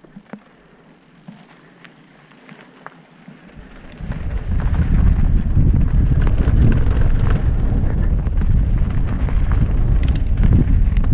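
Mountain bike setting off: a few light clicks at first, then, about four seconds in, loud wind noise on the GoPro microphone and a rumble of tyres rolling over the trail as the bike picks up speed, with scattered rattles.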